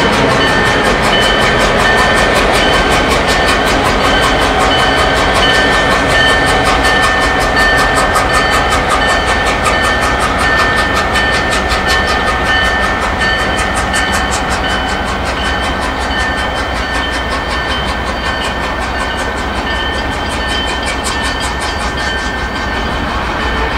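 Canadian National GP38-2 diesel locomotive 4707's EMD two-stroke engine working as it pulls away, with a steady high whine and a fast, even chuffing rhythm; the sound slowly fades as the locomotive moves off. The chuffing is the mark of a locomotive in poor shape.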